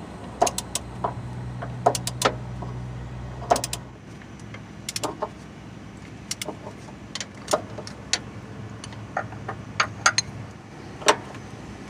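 Scattered metallic clinks and taps of an 18mm socket and wrench on the top nut of a Jeep Grand Cherokee motor mount, over a low steady hum that drops away about four seconds in.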